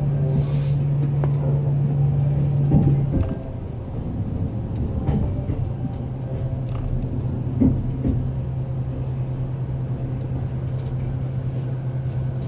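Interior running noise of a limited express electric train: a steady hum over the rumble of the wheels, with a few short knocks. About three seconds in, the hum steps down and the sound gets a little quieter.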